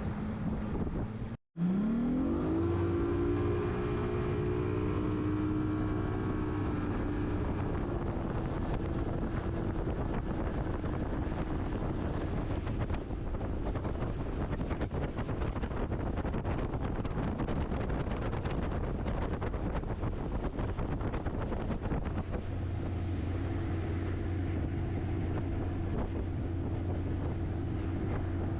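Boat motor running under way. After a brief dropout about a second and a half in, its pitch rises and then holds steady, with wind noise on the microphone covering it for much of the middle.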